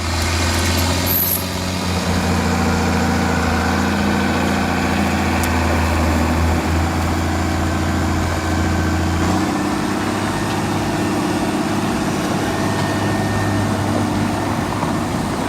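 International Harvester 5288 tractor's diesel engine running steadily under load while pulling out a stump, with a change in its note about nine seconds in.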